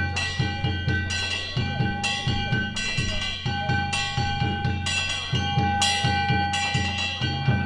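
Danjiri festival music (narimono): a taiko drum beating in quick runs of strokes, and hand-struck gongs (kane) clanging again and again, their ringing tones carrying between strikes.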